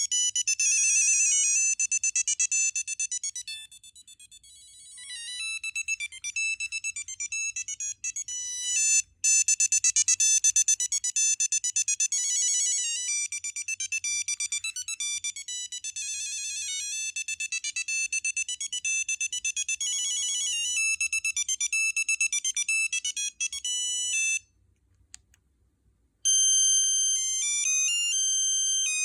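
Nokia 6340i cellphone playing its built-in ringtones: a single line of high-pitched electronic beeping notes in a quick melody. One tune ends about 24 seconds in, and after a pause of about two seconds another begins.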